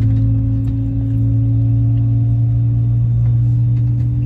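Airliner jet engines heard from inside the cabin: a loud, steady drone with a low hum and higher overtones, creeping slightly higher in pitch.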